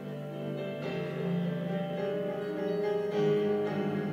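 Instrumental music played on a keyboard, sustained chords that change about a second in and again near three seconds in.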